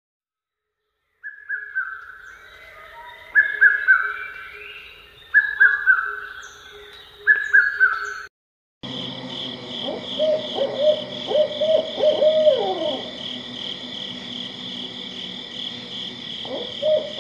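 Bird calls from two separate recordings. First, a short call repeated about every two seconds. Then, after a brief gap, a series of lower, quick calls over a steady high-pitched drone.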